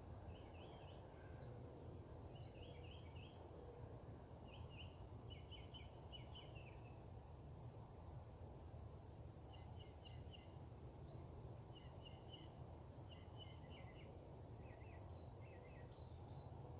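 Faint bird calls: short clusters of quick chattering notes, repeated in bursts with a pause of a few seconds midway, over a steady low background rumble.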